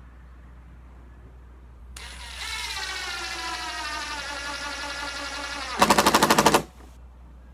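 Cordless impact driver driving a screw: the motor whines for about four seconds, its pitch sinking slightly as the screw bites, then the impact mechanism kicks in with a loud burst of rapid hammering for under a second as the screw seats, and stops suddenly.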